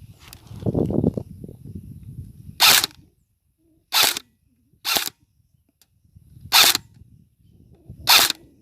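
Airsoft gun firing five single shots at uneven intervals, each a short sharp crack, with rustling of movement before the first shot.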